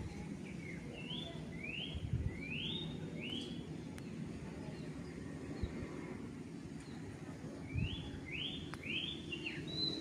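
A bird calling in two runs of quick rising, slurred whistled notes, about four in a row in the first few seconds and another cluster near the end, over a steady low background hum.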